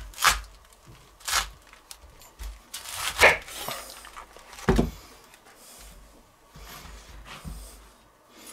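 A white cabbage is cut in half with a chef's knife on a wooden cutting board: several sharp, crisp cracks and crunches as the blade splits the tightly packed leaves, with quieter scraping and handling between them.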